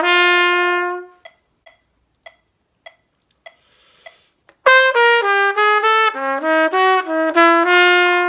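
B-flat trumpet finishes a held note about a second in, leaving a metronome ticking alone about every 0.6 s. Just past halfway the trumpet comes back in with a quick jazz phrase of many short notes that ends on a held note. The phrase uses an altered ninth and fifth over a dominant seventh chord, sounding as F7.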